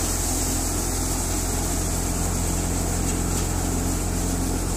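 Multi-crop thresher running steadily under load, a continuous even mechanical drone with a constant low hum, as it threshes freshly cut, still-green crop.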